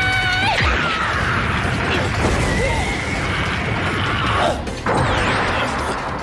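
Anime battle sound effects: a shout that breaks off about half a second in, then crashes and impact hits over dramatic background music.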